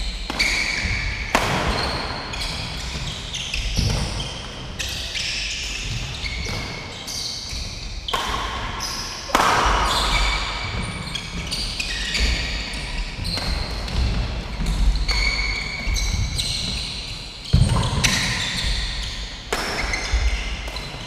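Doubles badminton rally: repeated sharp racket hits on the shuttlecock and players' footwork on the court, with short high squeaks, echoing in a large hall.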